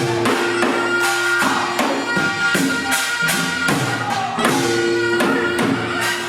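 Korean traditional music accompanying deotbaegi dance: percussion strikes about every half second under a held, reedy wind-instrument melody.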